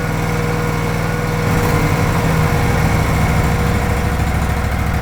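BOSS Snowrator MAG's engine running at raised revs to warm up its freshly changed oil. Its speed steps up slightly about a second and a half in and then holds steady.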